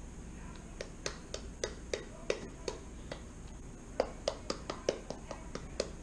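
Plastic glue bottle squeezed hard over a bowl to empty it, giving a string of sharp, irregular clicks and pops, about two to four a second.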